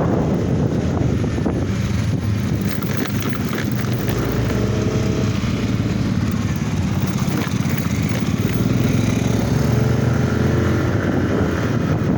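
A vehicle engine running steadily while driving along, with wind buffeting the microphone.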